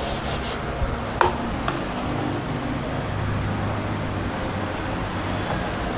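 A brief hiss of aerosol spray at the very start, then a few light metallic clinks and knocks from tools and parts being handled, about a second in and shortly after, over a steady low workshop hum.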